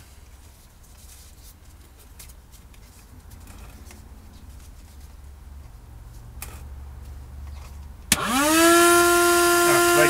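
A small 12-volt wet-and-dry vacuum is switched on about eight seconds in. Its motor spins up within a fraction of a second to a loud, steady high whine as it blows air out into a rubber glove. Before that there are only faint handling clicks.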